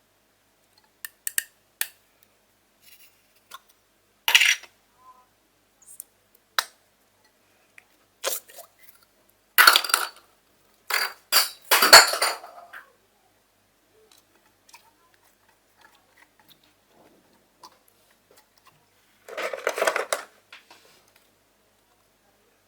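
Scattered clicks and taps of slime containers being handled and opened, with a few louder, longer rattling scrapes about ten seconds in and again near the end.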